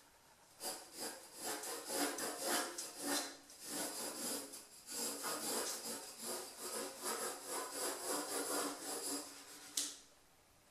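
Pencil scratching on drawing paper in runs of quick back-and-forth strokes, broken by short pauses, with one sharp click near the end.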